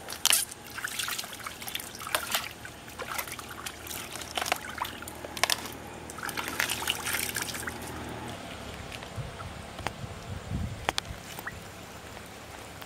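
Wet, irregular crackling and squelching from a plucked duck carcass being cut open with a knife and pulled apart by hand. The sounds are dense for most of the first eight seconds, then thin out to a few sharp clicks.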